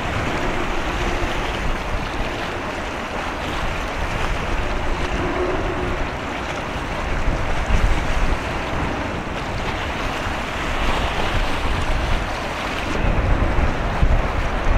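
Wind buffeting the microphone over a steady wash of sea water, with the low rumble growing stronger near the end.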